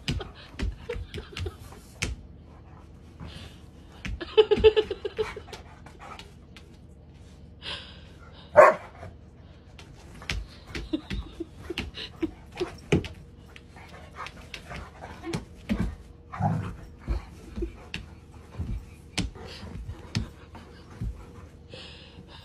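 A Doberman whining and giving a few short barks, among rustling and scuffing as it pushes and tugs at a padded dog bed. The sounds come in short scattered bits; the loudest is a sharp one about eight and a half seconds in.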